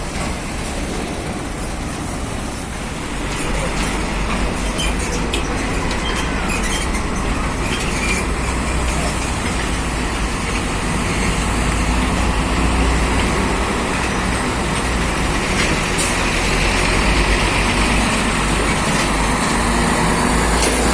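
Heavy Scania truck carrying an excavator, its diesel engine running with a steady low rumble as it moves slowly along, growing a little louder a few seconds in, with a few scattered clicks and knocks.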